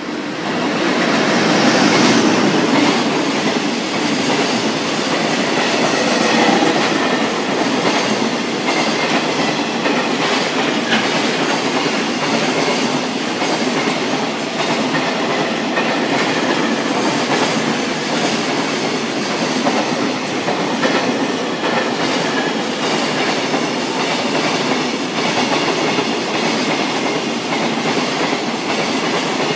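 A freight train hauled by a red electric locomotive passes close by. Its wheels clack over the rail joints with a steady rumble that swells about a second in and keeps on as the long line of wagons goes by.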